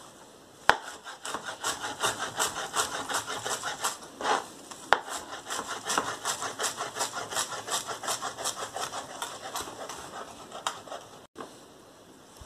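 Kitchen knife chopping fresh flat-leaf parsley on a plastic cutting board: a quick, even run of knocks, about three a second, that starts just under a second in and stops near the end.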